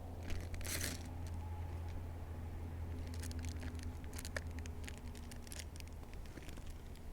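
Raw beef being seasoned: short, scratchy crinkling bursts of plastic packaging and salt being shaken on, most of them in a cluster about three to five seconds in, over a steady low hum.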